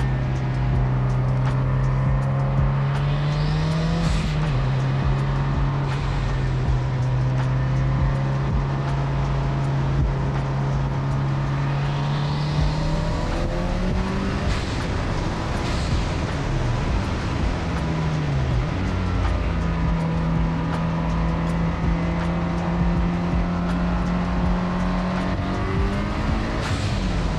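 A 500-horsepower track car's engine running hard at speed on a racetrack. Its pitch holds steady for long stretches, then dips and climbs again a few times, as with gear changes or lifting for corners.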